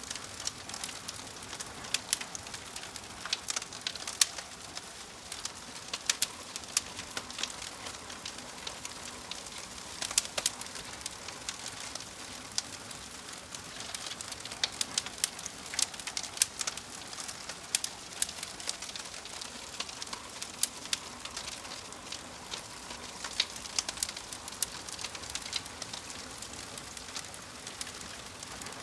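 Log fire crackling, with sharp pops and snaps scattered irregularly over a soft, steady hiss.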